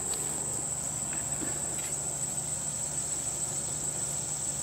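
Steady high-pitched insect chorus, a continuous unbroken trill, over a low steady hum.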